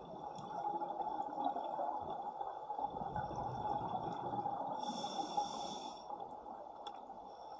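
A scuba diver breathing through a regulator, heard underwater: exhaled bubbles rumble out, then a short hissing breath in about five seconds in.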